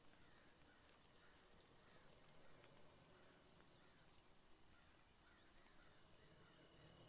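Near silence: faint room tone with scattered faint chirps and one short high whistle about four seconds in.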